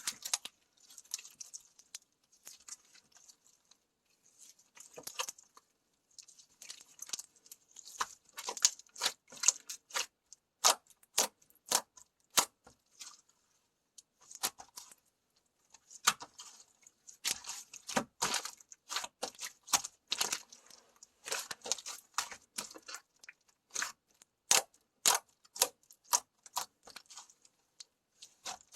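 Slime being squished, poked and stretched by hand, giving irregular sharp clicks and pops with soft crackling between them.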